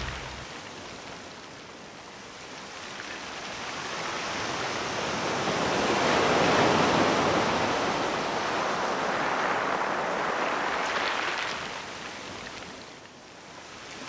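Rushing sound of sea surf: one long swell that builds over about six seconds and then fades away.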